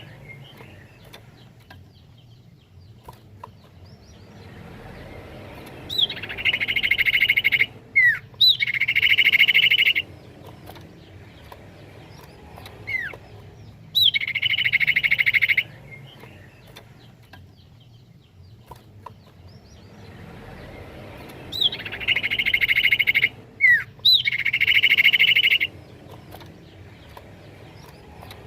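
Common iora (cipoh) calling: loud rapid trills about a second and a half long, mostly in pairs with a quick falling whistle note between, repeating every eight seconds or so.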